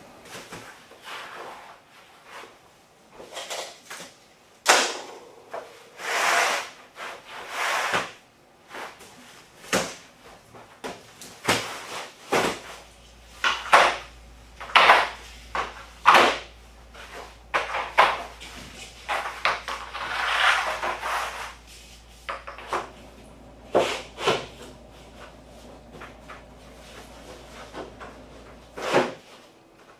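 Shrink-wrapped boxes of laminate flooring planks being picked up, slid and set down on DMX 1-step dimpled plastic underlayment, then loose laminate planks laid out on it: an irregular run of knocks, scrapes and rustles.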